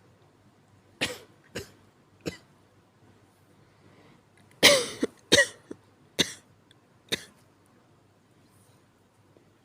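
A person's weak coughs: three small coughs, then a louder bout of several quick coughs about halfway through, followed by two more single coughs.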